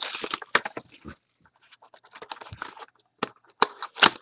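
Crinkling and clicking of card packaging and cards being handled as the next mini box of trading cards is opened: irregular crackles with a few sharp clicks and short pauses.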